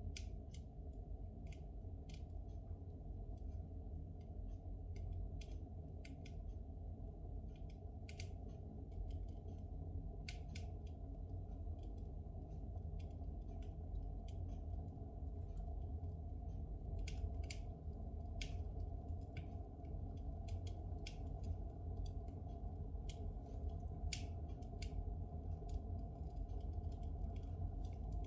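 Spruce logs burning in a fireplace: a steady low rumble from the fire, with scattered, irregular sharp crackles and pops from the resinous wood.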